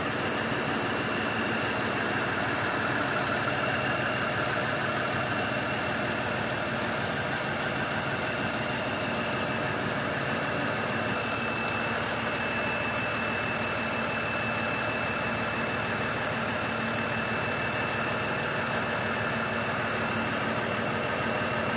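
Dump truck's engine running, heard from inside the cab as a steady drone with a thin high whine over it. A single small click about halfway through.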